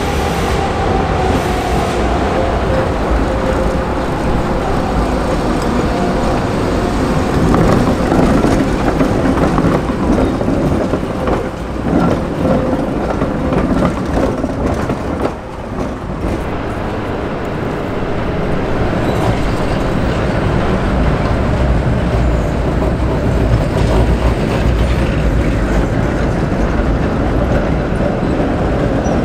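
Tatra trams running past on street track: a steady rumble of steel wheels on the rails, with an electric motor whine that falls in pitch over the first few seconds and a clatter of wheels over rail joints around the middle.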